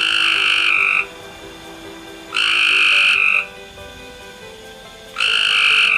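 A frog croaking: three loud calls, each about a second long, repeated every two and a half to three seconds.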